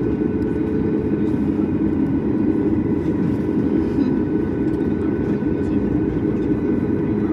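Steady cabin rumble inside a Boeing 737 MAX 8 airliner on the ground with its engines running at low power, a constant low drone with faint steady whining tones above it.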